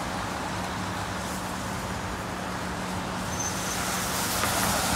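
Road traffic on wet pavement: a city bus idling with a steady low hum, and tyre hiss building near the end as a vehicle passes.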